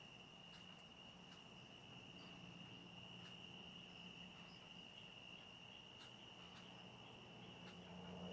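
Faint, steady high-pitched drone of an insect chorus, held on one unbroken tone.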